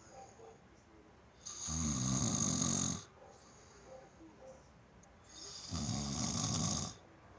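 A person snoring: two loud snores about four seconds apart, each lasting a little over a second, with a low buzzing rattle.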